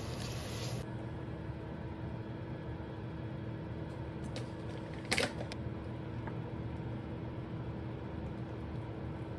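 Steady low hum and hiss of an induction hob running, with one sharp clink about five seconds in.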